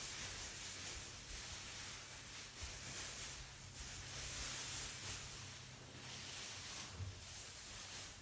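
Faint steady hiss with a low hum underneath: room tone, with no distinct event.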